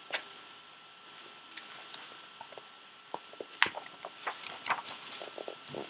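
Pages of a picture book being turned and handled close to the microphone: a sharp tap at the start, then a run of small paper clicks and crackles through the second half.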